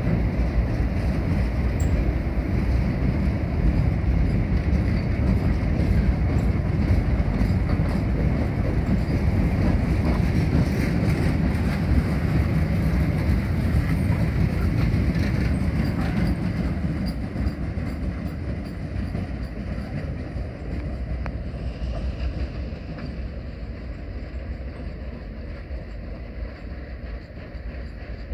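Cement tank wagons rolling past, a steady heavy rumble of wheels on the rails with scattered clicks and clatter. About two-thirds of the way through the sound starts to fade as the train pulls away.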